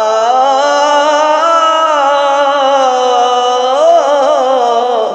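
A male Quran reciter holds one long, melodically ornamented vowel in slow tajweed recitation. The pitch glides slowly, with a quick warbling trill about four seconds in, and the voice breaks off near the end.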